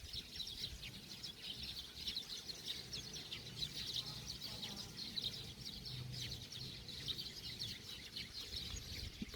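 A flock of sparrows chirping, many quick overlapping chirps without pause.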